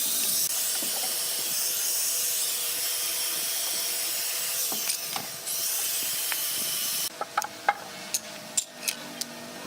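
A steady hiss that cuts off suddenly about seven seconds in, followed by a few sharp clicks and taps.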